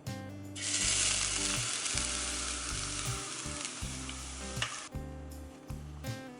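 Pajeon (Korean scallion pancake) frying in a pan, a loud high sizzle that starts about half a second in and cuts off abruptly near the end. Soft background music plays underneath.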